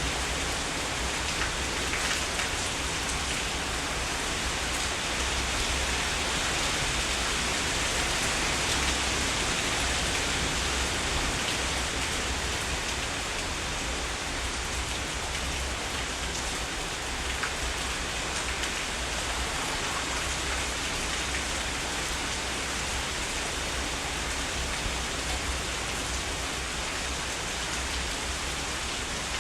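Heavy rain falling steadily: an even hiss with scattered drop ticks.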